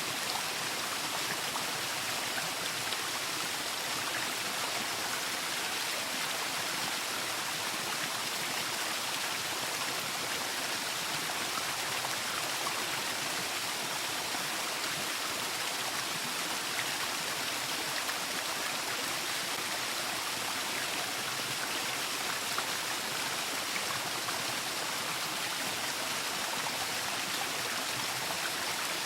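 Waterfall: falling water splashing and rushing in a steady, unbroken hiss.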